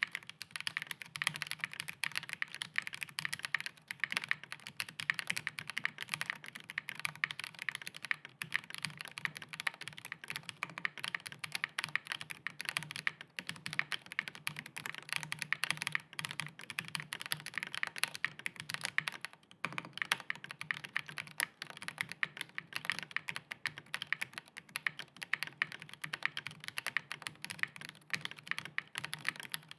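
Continuous typing on a custom mechanical keyboard, a Neson 700E with factory-lubed Chosfox x JWK Voyager switches on a polycarbonate plate with plate foam, under GMK keycaps: a dense, steady run of keystroke clacks with a couple of short pauses.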